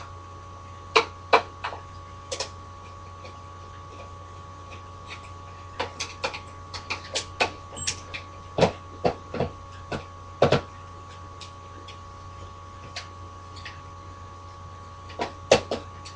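Irregular clicks and knocks of plastic and metal parts being handled while an Xbox 360 console is taken apart with a screwdriver, in a few bursts with pauses between. A steady hum runs underneath.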